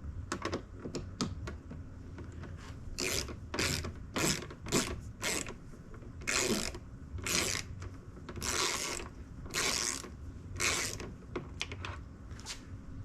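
A hand driver with a T20 Torx bit working the screw that holds a truck door handle cap, loosening it part way. It gives an irregular run of clicks and short rasping strokes, about a dozen, with the longer strokes in the second half.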